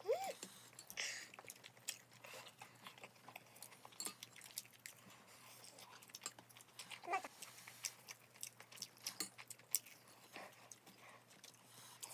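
A person eating close to the microphone: chewing and wet mouth sounds from spicy rice cakes and braised ribs, with scattered light clicks of chopsticks and a spoon. Two brief vocal sounds come through, one just after the start and one about seven seconds in.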